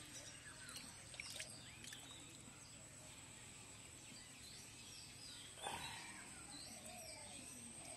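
Faint chirping of small birds over a steady high whine, with one louder wet squelch a little over halfway through as hands dig in the mud.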